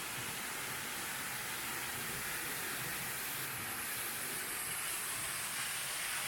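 Steady rushing of a waterfall, an even hiss of falling water with no breaks.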